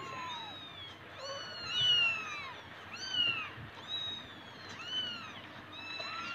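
Persian kittens mewing repeatedly: thin, high mews that rise and then fall in pitch, about one a second, with two overlapping around the two-second mark.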